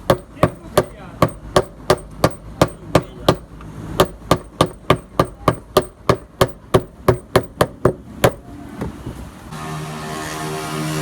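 A fast, even run of sharp hammer-like strikes, about two to three a second, with a brief pause near the middle, stopping about three seconds before the end. A steady machine hum comes in near the end.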